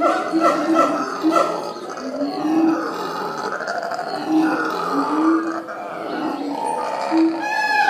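A zoo animal calling: a string of short pitched calls that rise and fall, one after another.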